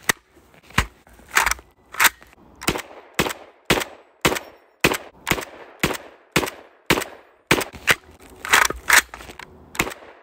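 Desert Ordnance SA60, a semi-automatic belt-fed M60 in .308, firing a steady string of single shots at about two a second.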